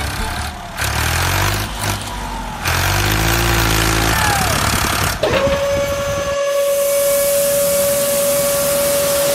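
Small electric motor of an RC model dump truck running, its pitch rising and falling as it manoeuvres. About five seconds in, the tipper mechanism starts with a steady high whine as the bed lifts, and loose sand pours out with a hiss.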